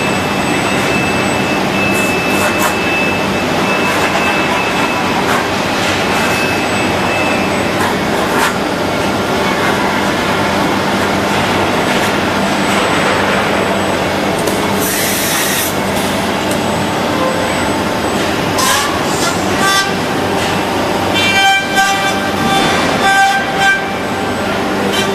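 Steady machine noise from a six-axis robot's cutting spindle trimming a plastic car dashboard, with scattered clicks throughout. Near the end, several steady tones come in for a few seconds.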